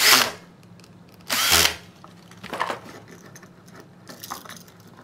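Cordless drill/driver driving the terminal screws on a duplex outlet in two short bursts, about a second apart, tightening the hot wires under the brass screws; a few faint clicks follow.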